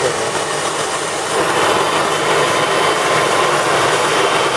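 Food processor motor running steadily at speed, its blade blending butter and sugar in the bowl.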